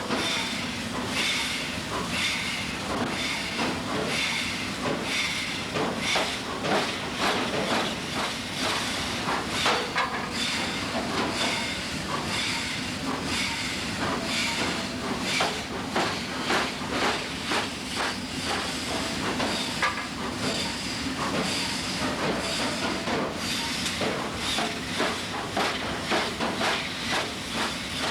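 Hammer blows on hot steel at an anvil over a steady hissing roar, likely a forge. The strikes come irregularly at first, then in quicker runs of two or three a second through the second half.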